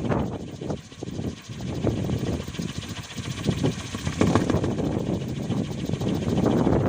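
Wooden kolecer, a wind-driven propeller on a pole, spinning with a loud whirring buzz that dips about a second in and swells again later.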